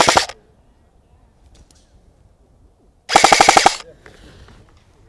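Arcturus AT-AK12 airsoft electric gun firing full-auto: the end of one short burst right at the start, then a second burst of rapid, evenly spaced shots lasting under a second, about three seconds in.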